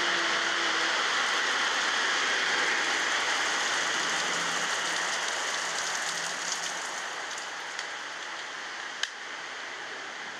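Steady rush of heavy rain mixed with the take-off engine noise of an Airbus A321neo's Pratt & Whitney PW1100G geared turbofans, slowly fading as the jet climbs away into the cloud. A single sharp click about nine seconds in.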